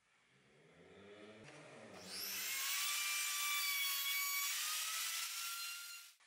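A handheld corded power tool spins up with a rising hum, then cuts into wood: a loud hiss with a steady high whine, which cuts off abruptly near the end.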